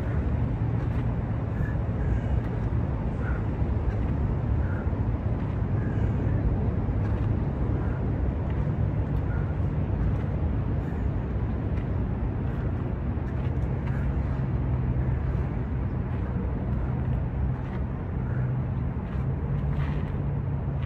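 Steady low rumble of city traffic, with faint short chirps about every second and a half.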